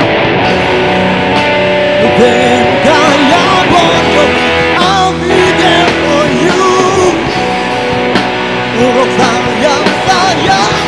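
Live rock band playing a rock and roll number through a PA: electric guitars, bass guitar and drum kit. From about two seconds in, a lead line of bending, sliding notes plays over the steady accompaniment.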